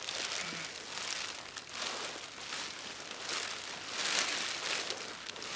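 Clear plastic sheeting crinkling and rustling as it is pulled down over a person lying inside it. The sound comes in several uneven surges and is loudest about four seconds in.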